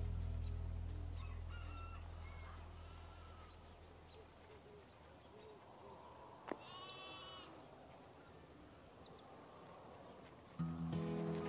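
Background music fades out over the first few seconds, leaving faint bird calls: a few short chirps and, about seven seconds in, a sharp click followed by one louder, harsher call. The music comes back in suddenly near the end.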